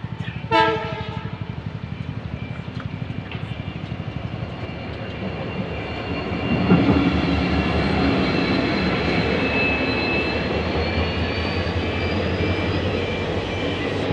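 An idling engine pulses steadily, and a short horn blast sounds about half a second in. From about six seconds in, a diesel locomotive hauling passenger coaches rolls past and its rumble grows loud and steady, with thin high ringing tones above it.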